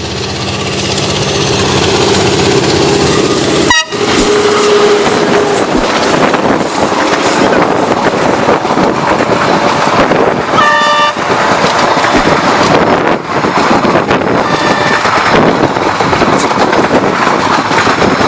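Indian Railways diesel locomotive approaching and passing close by, growing louder over the first couple of seconds, followed by passenger coaches rushing past in a steady loud rumble. A short horn blast sounds about eleven seconds in.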